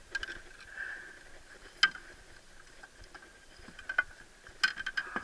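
Scattered sharp knocks and clicks of gear being handled in a small boat, the loudest about two seconds in and a quick cluster near the end.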